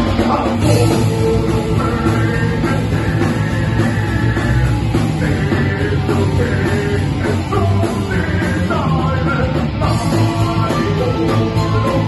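Live rock band playing loud and without a break: electric guitars, bass and drums, with a male singer on the microphone.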